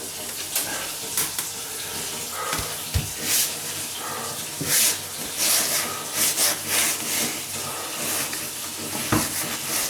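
Hand scrubbing and wiping of a kitchen floor with a sponge or cloth: irregular rubbing strokes over a steady hiss, with two light knocks, about three seconds in and near the end.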